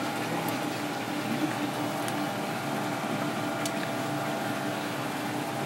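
Steady hum of kitchen machinery with a constant low tone, and three faint ticks spread through it.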